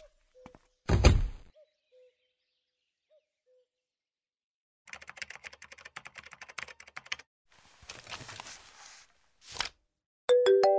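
A door shutting with a heavy thunk about a second in, then two stretches of dense, scattered crackling and rustling sound effects. A mobile phone ringtone starts near the end.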